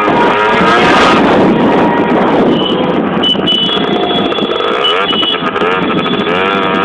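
Noisy street celebration: passing vehicles with held horn tones over a dense mix of voices.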